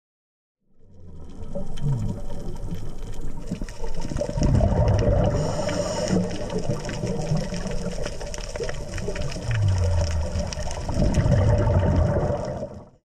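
Underwater sound picked up by a diver's camera: a scuba diver breathing through a regulator, with a rush of exhaled bubbles twice, about seven seconds apart, over a steady crackle of fine clicks.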